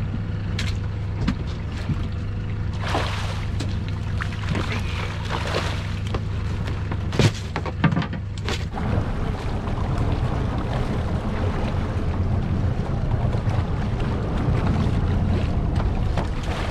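Small fishing boat's engine running steadily with a low hum, with water and wind noise around it. Two sharp knocks come a little under halfway through.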